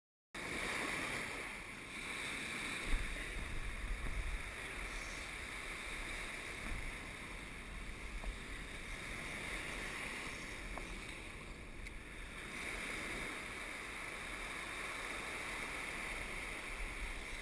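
Surf washing and foaming over a rocky reef shelf, with wind buffeting the microphone in a low rumble. It begins after a moment of silence.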